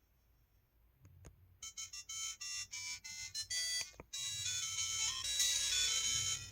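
LG-SH130 mobile phone playing a built-in ringtone through its own speaker, which has a known speaker issue. After a second of near silence and a couple of faint clicks, a melody of bright, high notes starts and thickens into a fuller, louder arrangement about four seconds in.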